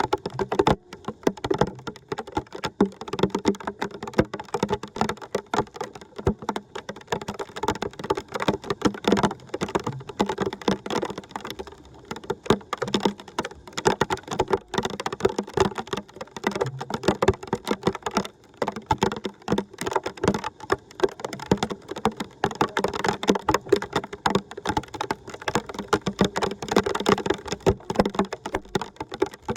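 Water splashing and trickling, a dense, steady patter of small splashes.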